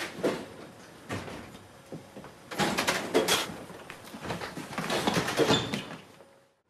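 Metro carriage interior on a film soundtrack: clattering and rattling, loudest in two stretches about three and five seconds in, then cutting off suddenly near the end.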